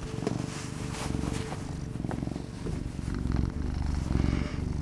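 Domestic cat purring steadily, close up on a studio microphone.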